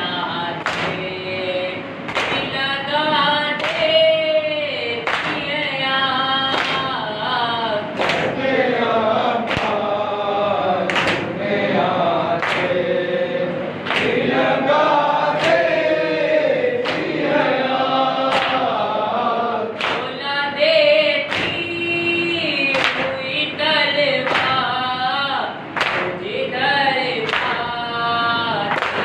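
A nauha, a Shia mourning lament, sung by a lead male voice with a group of men singing along in chorus. The singing is punctuated by rhythmic matam, open-hand slaps on the chest, about one every second and a half.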